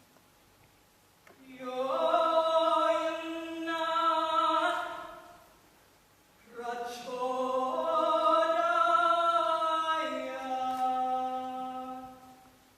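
Choir singing a cappella, holding sustained chords in two phrases with a short pause between them.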